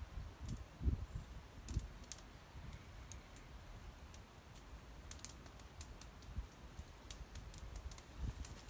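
Campfire crackling, with scattered sharp pops and snaps over a low, irregular rumble.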